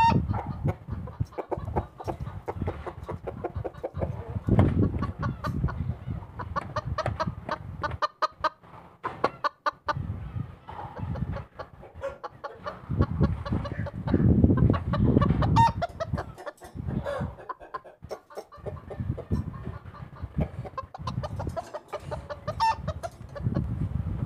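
A chicken clucking over and over in short, irregular calls, while a low rumble comes and goes underneath.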